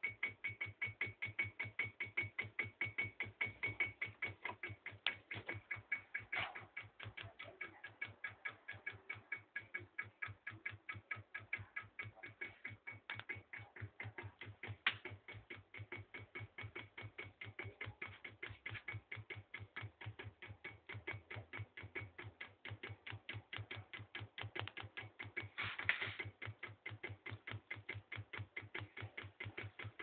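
Reed-switch magnet pulse motor running: a rapid, even clicking of several clicks a second as its coil is pulsed, over a faint steady hum.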